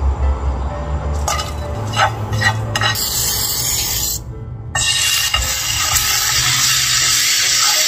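A kitchen knife scrapes and taps chopped dried chillies off a wooden cutting board into a pan. Then dried chillies and fish cake pieces sizzle in the hot frying pan, the sizzle loud and steady from about five seconds in.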